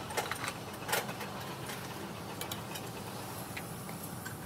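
Steel gear plates and brake discs of a road grader's wheel hub clinking against each other and the hub housing as they are lifted out by hand: a few scattered sharp metallic clinks, the loudest about a second in, over a steady low hum.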